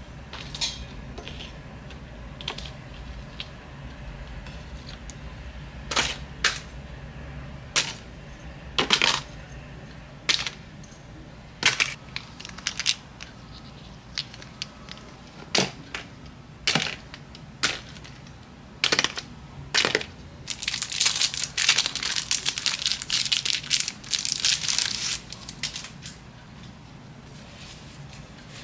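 Cardboard treat boxes being folded and assembled by hand: scattered sharp snaps and taps of the card as flaps are pushed in, then about five seconds of steady crinkling and rustling later on.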